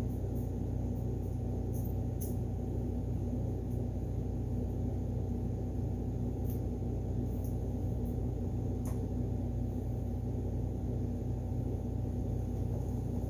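Steady low machine hum with a faint constant tone in it, unchanging throughout, with a few faint ticks over it.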